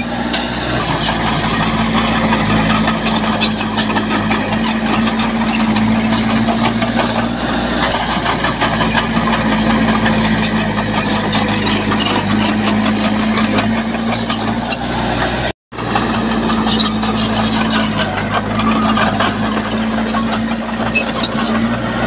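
Heavy earthmoving machine's diesel engine running steadily under work, with constant rattling and clatter. There is a brief break in the sound about two-thirds of the way through.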